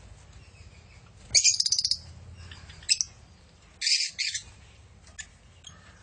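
Lovebirds calling: a rapid, high-pitched chattering burst about a second and a half in, a short call near three seconds, and two loud high-pitched calls around four seconds.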